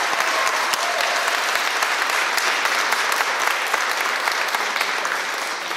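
Audience applauding, many hands clapping steadily and fading away near the end.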